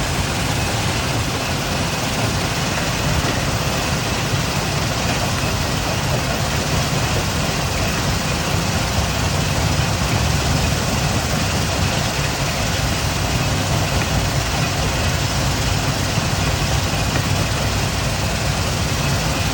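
Stone-crushing plant running: a steady, loud rumble of heavy machinery with dense noise across the range and no separate knocks.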